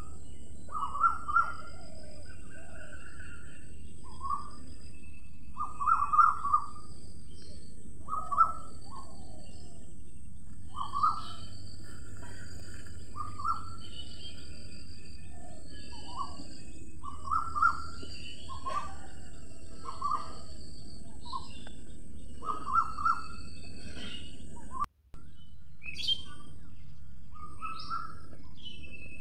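Several wild birds calling: many short, repeated calls at a middle pitch, with thinner high chirps among them over a steady high hiss. A momentary dropout comes about 25 seconds in.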